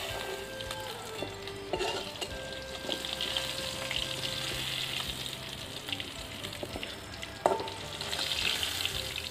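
Food frying in hot oil in a wok, a steady sizzle, as a spatula stirs and scrapes it. A sharp knock of the spatula against the wok about seven and a half seconds in.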